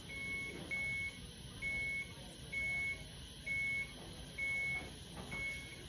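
Hospital bedside medical equipment alarm: a single high-pitched beep repeating about once a second.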